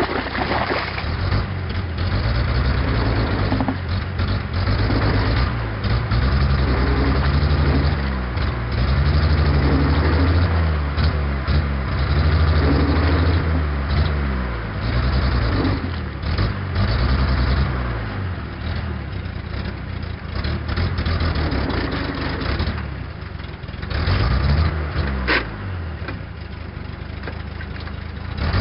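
Old truck engine running under load as it drives a papercrete mixer's blade through slurry, its revs rising and falling again and again. Near the end the revs drop, and one sharp click sounds.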